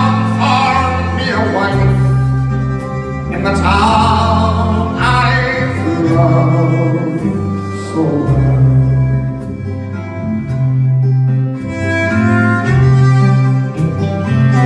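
A live folk band playing an instrumental passage: acoustic guitar with deep sustained bass notes under a held melody line that wavers in pitch.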